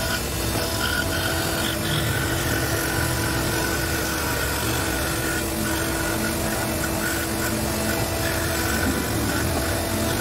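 Scroll saw running steadily, its blade cutting through a sheet of acrylic, with an even machine hum that holds one pitch.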